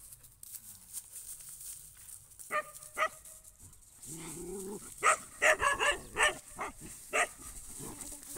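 Puppy barking in short, sharp yaps: two single barks, then a quick run of about six, then one more near the end.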